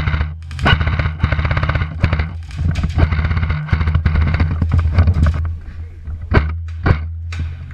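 Airsoft guns firing in repeated rapid full-auto bursts of clicks, over a steady low hum.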